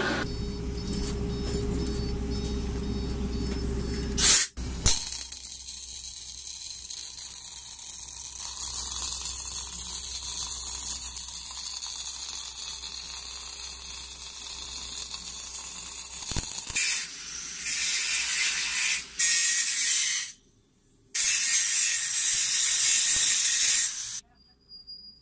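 Steady hiss of an automatic orbital welding torch laying a weld on a steel pipe. Near the end come louder, rougher stretches of a handheld angle grinder on the pipe, broken by short gaps. A low machine hum and two sharp clicks come before the welding.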